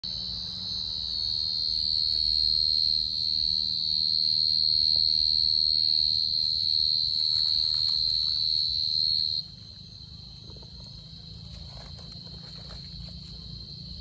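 Cricket singing one continuous high-pitched trill. About nine seconds in it suddenly drops to a much quieter level and carries on.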